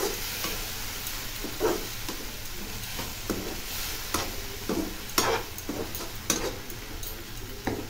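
Spatula stirring and scraping a thick tomato and carrot chutney around a nonstick kadai, in irregular strokes about once a second, over a low sizzle of frying. The mixture is frying down with its water cooked off.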